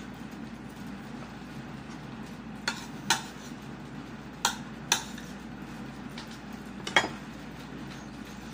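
A person eating with his fingers from a plate: about five short, sharp clicks and clinks, the loudest near the end, over a steady low hum.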